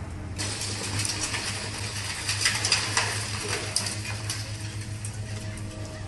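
High-reach demolition excavator's diesel engine running steadily, under the crackle and clatter of concrete being broken off a tall building and debris falling. The cracking starts about half a second in and is loudest around the middle.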